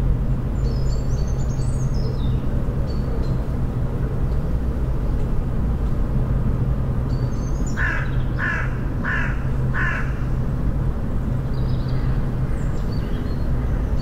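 A crow caws four times in quick succession, about half a second apart, over a steady low rumble. Thin, high songbird chirps come near the start and again near the end.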